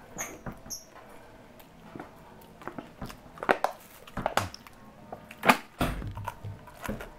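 Scattered clicks, knocks and crinkles of a meal being handled: food, paper wrapping and a plastic bag moved about. The sharpest knock comes about five and a half seconds in.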